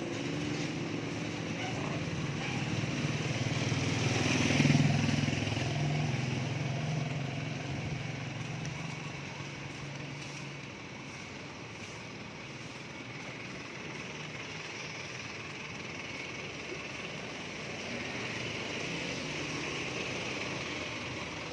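A motor vehicle's engine running as it passes close by, loudest about five seconds in and fading away by about ten seconds, leaving low steady street noise.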